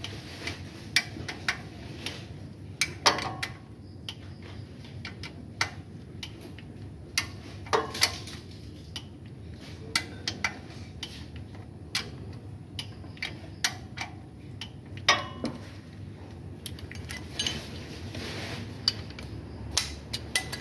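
Irregular metallic clinks and taps of hand tools and engine parts knocking together, with the loudest knocks about three seconds in and again about fifteen seconds in.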